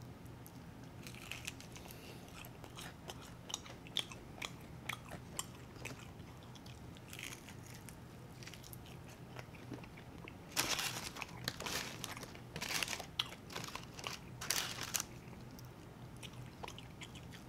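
Close-up eating sounds of fried chicken wings and fries: soft chewing with scattered crisp bites, then a run of louder crunches from about ten to fifteen seconds in.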